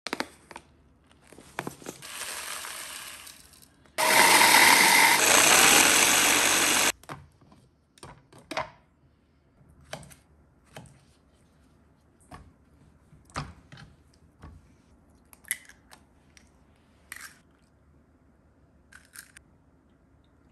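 Electric mini food chopper running for about three seconds, grinding oats into flour, starting and stopping abruptly. Scattered light taps and clicks follow.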